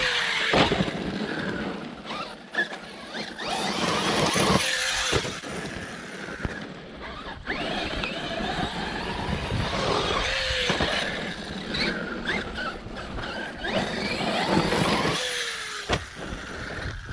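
Arrma Fireteam RC truck driving on loose dirt. Its brushless electric motor whines, the pitch rising and falling several times with the throttle, over a steady rush and crunch of tyres on dirt and gravel.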